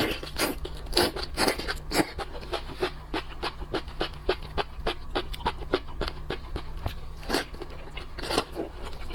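Close-miked eating sounds: wet, crisp clicks and crunches of chewing, several a second and irregular, with a few louder snaps, over a steady low hum.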